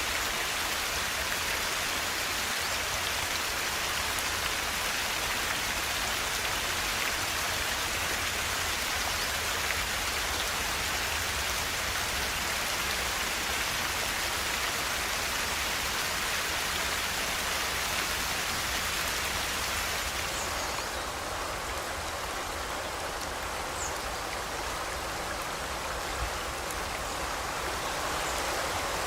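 River water rushing and splashing in a steady hiss. About two-thirds of the way in the hiss softens a little, and a few brief bird chirps sound over it.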